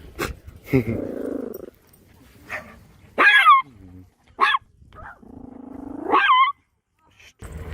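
A dog growling and barking: a low growl about a second in, then three sharp high barks spread over the following few seconds.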